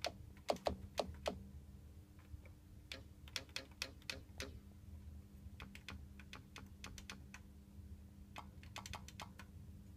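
Front-panel buttons on an Akai S5000 sampler clicking as they are pressed, in short irregular runs, over a steady low hum from the studio gear.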